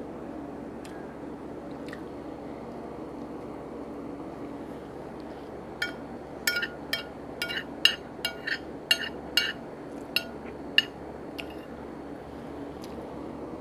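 A utensil clinking against a dish while eating: about a dozen sharp, ringing clinks over some five seconds, starting about six seconds in, over a steady low background hum.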